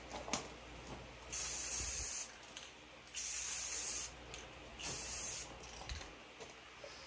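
Aerosol spray paint can hissing in three short bursts, each about a second long, with brief pauses between.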